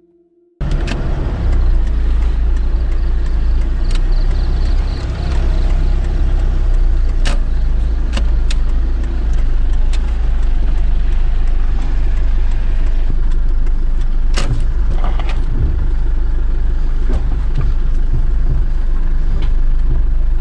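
A car driving down a wet, slippery dirt slope: a steady low rumble of engine and tyres, with a few sharp knocks scattered through it.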